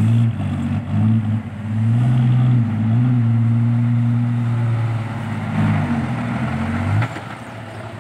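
Loaded Isuzu Deca 195 dump truck's diesel engine pulling hard through loose soil, a loud, deep, steady exhaust note from its new triple exhaust tips, which drops off suddenly about seven seconds in.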